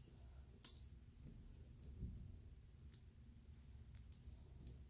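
LEGO bricks and plates clicking as they are pressed and snapped together by hand: a few short, sharp plastic clicks spaced out, the sharpest just over half a second in.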